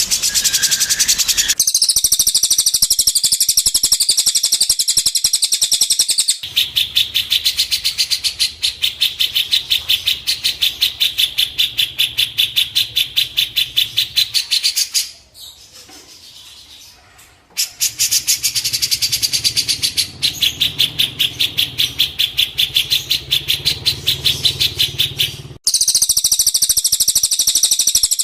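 A bird-song training track: a songbird's rapid, evenly repeated high chirps, several a second, in spliced loops that change abruptly, with a short quieter break about halfway through.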